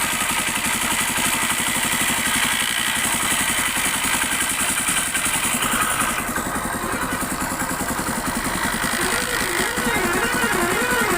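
Hero Honda CD 100 SS single-cylinder four-stroke engine running with an extra mechanical noise from the engine, which the mechanic traces to the kick-start ratchet chattering because the kick shaft timing was not set right after an earlier rebuild. Background music comes in near the end.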